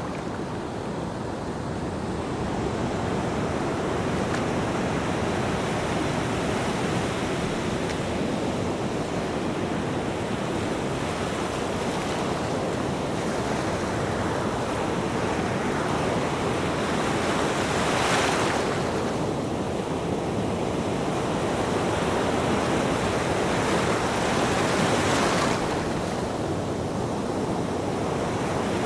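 Ocean surf washing steadily onto a beach, with two louder waves breaking about two-thirds of the way in and again near the end.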